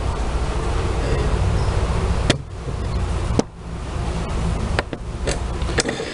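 Whirlpool washing machine spinning, its transmission making a steady rubbing, grinding noise, with a couple of sharp clicks. The noise is a typical transmission fault: worn plastic cams on the wash shaft don't lift the pinion far enough, so it rubs against the shaft's splines.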